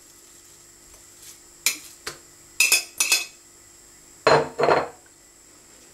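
A slotted spoon and a plate knocking against an enamel mixing bowl as minced beef is scraped off into it: a light click, then two ringing clinks about three seconds in, then two louder, duller knocks a little past four seconds.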